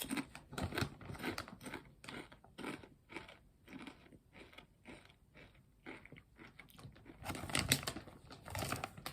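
A person chewing kettle-cooked potato chips, a steady run of crisp crunches a few times a second.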